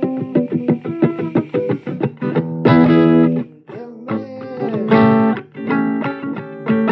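Blues guitar intro: single picked notes and chords, with a few bent notes.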